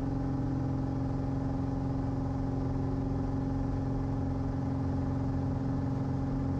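Cirrus SR20's four-cylinder piston engine and propeller running at full takeoff power: a steady, even drone with a slight rise in pitch near the start.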